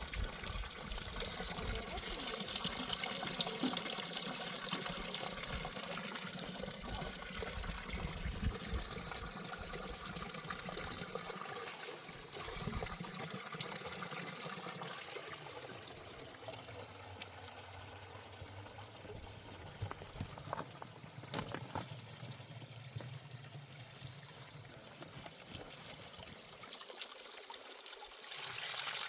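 Water running or trickling steadily, louder for the first dozen seconds and then somewhat quieter.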